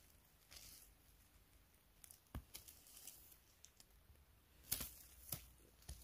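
Near silence with faint, scattered rustles and a few small snaps, the sharpest a little under five seconds in: someone handling forest-floor litter while picking mushrooms.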